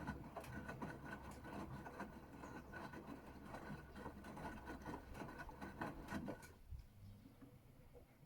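Gorenje UseLogic 65165 washing machine in its wash phase: the drum motor hums with a faint whine while the laundry and water tumble and splash in the drum. The motor stops about six and a half seconds in, as the drum pauses before its next turn.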